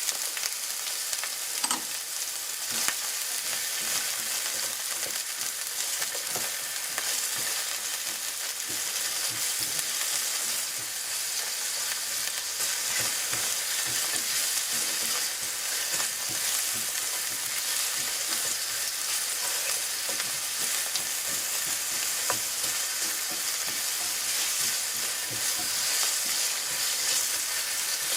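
Onion and ginger sizzling in hot olive oil in a skillet: a steady frying hiss, with a few sharp clicks along the way.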